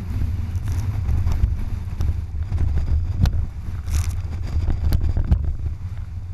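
Strong wind, around 100 km/h, buffeting the microphone as a heavy, uneven low rumble, with a few sharp knocks in the second half.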